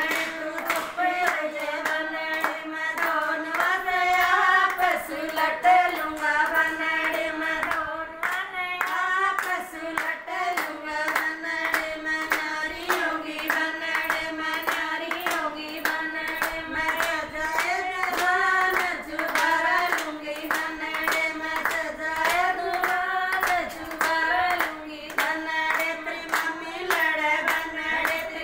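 A group of women singing a folk song together, unaccompanied except for their own rhythmic hand-clapping that keeps a steady beat.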